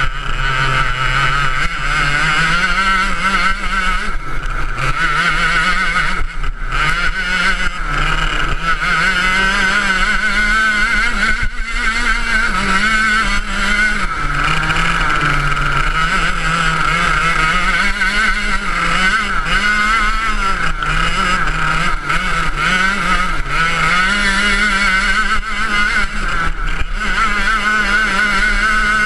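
Ice kart's engine running under load from an onboard camera, its pitch rising and falling again and again as the engine speed changes through the corners.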